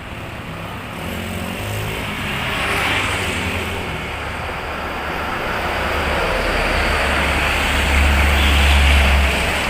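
Road traffic of motorbikes and cars passing on a main road, a steady wash of engine and tyre noise. A deep engine rumble builds and is loudest near the end as a vehicle passes close.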